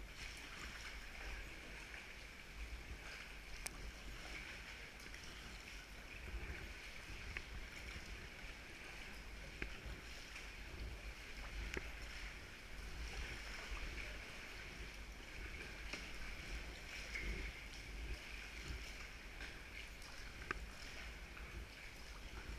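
Sea water sloshing and lapping around a kayak as it is paddled, a steady splashy hiss with a few faint knocks.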